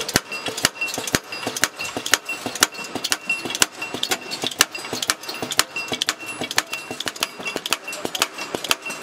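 M80 bullet sizing machine running, its indexing dial and sizing stations clicking sharply about twice a second in an even rhythm, with a faint high whine between the clicks.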